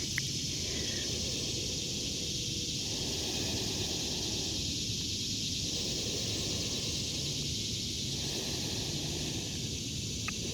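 Steady chorus of cicadas, an even high-pitched hiss that doesn't let up, over a low background rumble.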